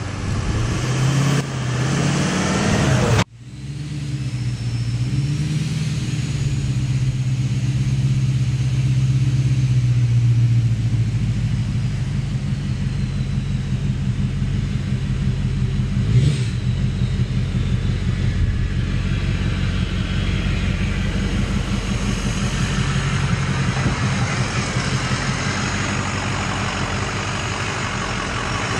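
An engine running steadily at low revs, its pitch wavering a little, with one short sharp crack about sixteen seconds in.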